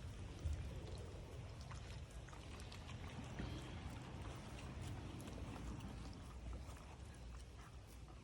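Dogs eating from their bowls: faint, scattered clicks of chewing and of muzzles against the bowls.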